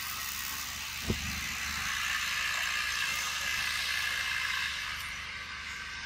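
Steady high hiss of outdoor background noise, with a single short low thump about a second in.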